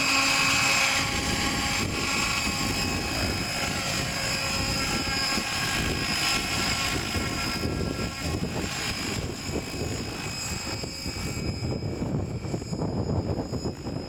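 700-size radio-controlled helicopter flying, its drivetrain giving a steady high-pitched whine over the rush of the rotor. The whine grows fainter in the last few seconds as the helicopter climbs away, with wind buffeting the microphone underneath.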